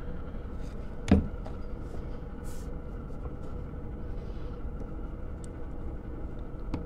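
Steady low workshop hum with a single sharp knock about a second in: a plastic glue bottle set down on a wooden workbench. A few faint taps and clicks follow.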